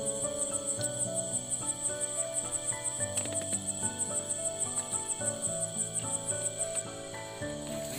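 Night insects chirping in a steady rapid pulse, about six chirps a second, which stops about seven seconds in. Soft background music plays underneath.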